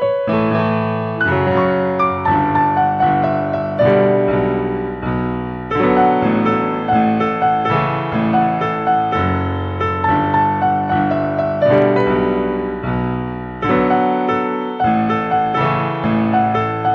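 Background piano music: a steady run of gentle notes, each struck and fading.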